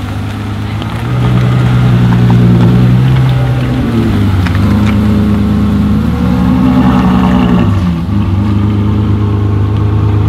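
Ferrari F12's 6.3-litre V12 with a Novitec exhaust, driving off at low revs with a deep, steady engine note that gets louder about a second in, shifts pitch a few times and dips briefly about eight seconds in before picking up again.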